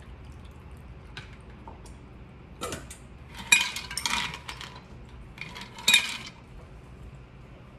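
Metal cocktail shaker clinking as a shaken mojito is strained out of it over crushed ice, in a few short clusters of sharp metallic clinks about three seconds in and again near six seconds.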